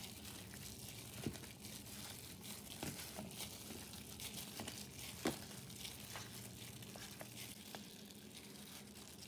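A gloved hand mixing raw chicken pieces into a yogurt and spice marinade in a plastic tub: faint crinkling of the disposable plastic glove, with scattered small clicks.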